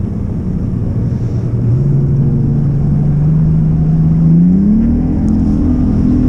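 Bass boat's outboard motor running under way and throttling up. Its pitch steps up about two seconds in and climbs again a little past the middle.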